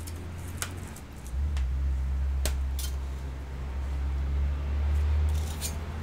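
A Medion Akoya E1222 netbook being handled on a workbench: a few sharp plastic clicks and taps, with a low rumble through the middle as it is moved and turned over.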